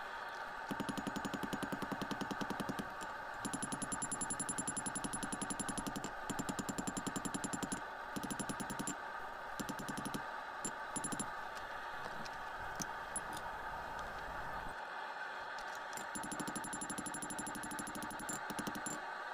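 Hand hammer striking hot steel on a Peter Wright anvil in quick runs of blows with a bright metallic ring, pausing every second or few, over a steady background drone.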